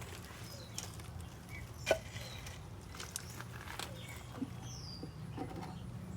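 Scattered light clicks and knocks of garden fountain parts being handled during disassembly, the sharpest about two seconds in, with a few faint bird chirps and a low steady hum behind.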